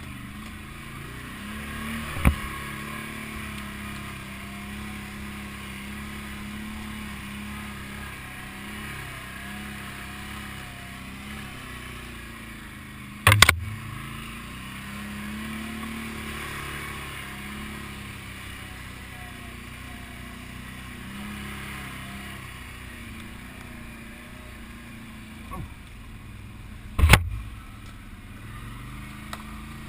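ATV engine running steadily while riding a rough trail, its pitch wavering slightly. Three sharp knocks stand out, a couple of seconds in, about halfway through and near the end.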